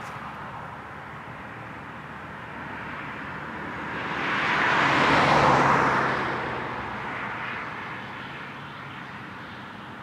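A car passing by: a rush of tyre and engine noise that swells to its loudest about halfway through and fades away again over a few seconds.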